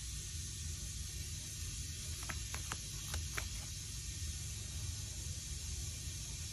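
Steady background hiss and low hum of the recording's room tone, with four or five faint short ticks between about two and three and a half seconds in.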